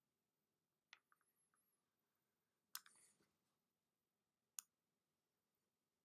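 Three faint, separate computer mouse clicks, about two seconds apart, against near silence.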